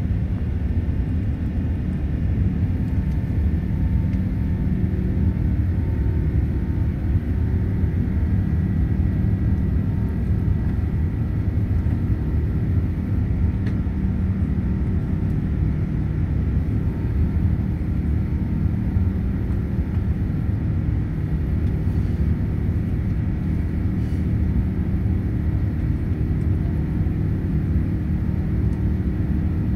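Airbus A380 cabin noise in the climb after takeoff: a steady low rumble of the jet engines and rushing air heard from a window seat over the wing, with a faint whine above it.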